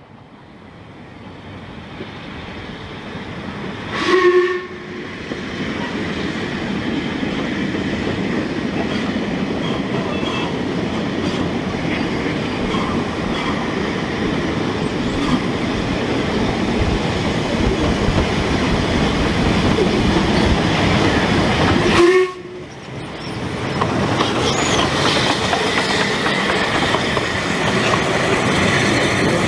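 Narrow-gauge Ffestiniog Railway train running on the track, with a continuous rumble and clatter that grows louder over the first few seconds. Two short toots on the train's whistle or horn come about four seconds in and again about twenty-two seconds in, and the running sound drops off suddenly after the second toot before building back up.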